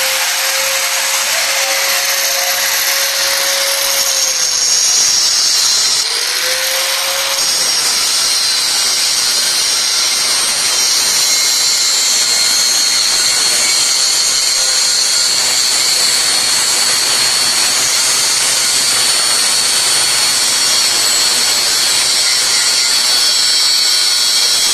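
Bosch PWS 750-115 angle grinder, a 750 W, 115 mm model, cutting through thick steel rebar with a metal-cutting disc. A steady high whine with continuous grinding of disc on steel, its pitch shifting briefly in the first seven seconds as the disc bites, then running evenly under load.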